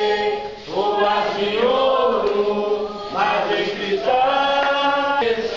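Voices singing a slow chant, long held notes with short breaks between phrases.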